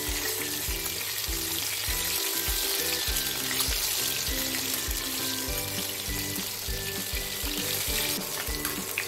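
Hot oil sizzling steadily as pieces of rohu fish shallow-fry, being turned towards a light golden colour. Background music with a steady beat plays underneath.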